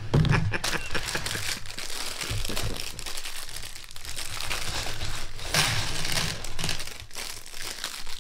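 Plastic Lego parts bags crinkling, with many small hard plastic Technic pieces clicking and rattling as they are handled and sorted.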